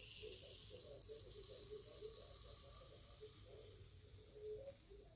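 Steady hissing pour into a small container, tapering off near the end.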